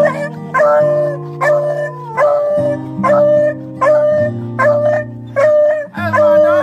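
Background music with held chords and a repeating note, with a beagle howling over it in excitement; a long falling howl comes near the end.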